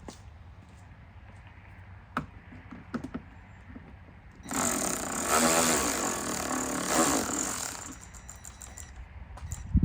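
A handheld power driver runs for about three and a half seconds, backing out a motorcycle windshield screw, after a few light clicks of the tool being set against the screw.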